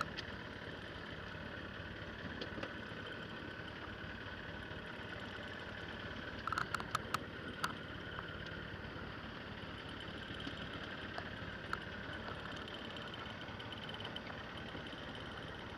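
A motor running steadily with a constant hum. A quick run of sharp clicks comes about six and a half seconds in, and one more click comes near twelve seconds.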